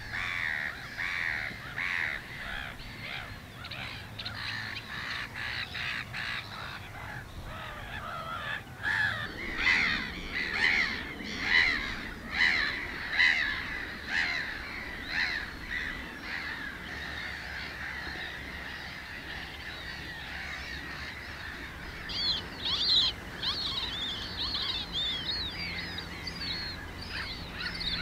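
A black-headed gull colony calling: many harsh, repeated calls, loudest about ten to fourteen seconds in. Higher, quicker calls join near the end.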